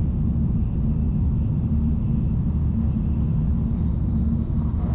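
Steady low rumble of a Shinkansen Nozomi bullet train running at speed, heard inside the passenger cabin.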